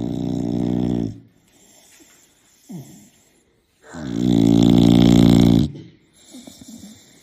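A man snoring loudly, with two long rattling snores: the first dies away about a second in, and the second comes about four seconds in and lasts nearly two seconds. A short snort falls between them, and quieter breathing follows.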